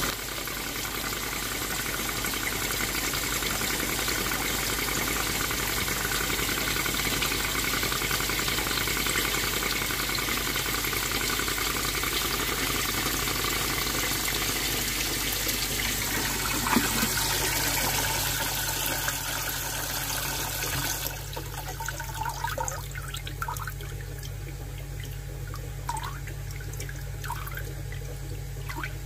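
Tempest pond filter being flushed during a clean: water rushing out steadily through the waste, cutting off suddenly about two-thirds of the way in. After that only the low steady hum of the still-running pond pump remains.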